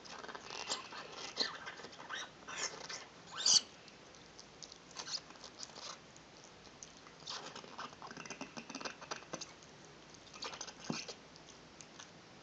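Shiba Inu chewing and gnawing on a pink ball: irregular bursts of wet, crackly mouthing sounds with pauses between, the loudest a sharp one about three and a half seconds in.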